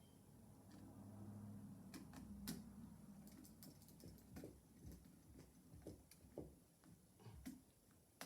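Faint, scattered small clicks and ticks of hand tools and a stiff copper wire being handled at a light switch's terminal, with a faint low hum about a second in.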